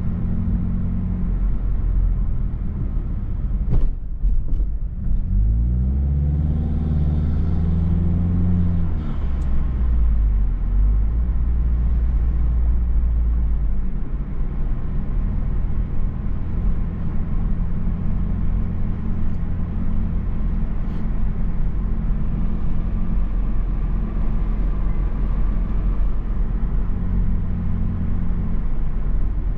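Mazda3 Turbo's turbocharged four-cylinder engine and tyres heard from inside the cabin while driving: a steady low rumble. About six seconds in the engine note climbs and holds, then drops back a few seconds later. A brief click comes about four seconds in.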